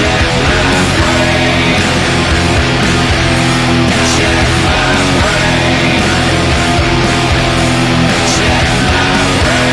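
Dean ML electric guitar played through an amp along with a recorded rock song, playing steadily without a break.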